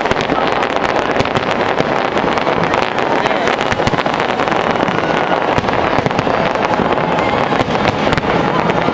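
Fireworks exploding overhead in a dense run of cracks and bangs, over the voices of a large crowd.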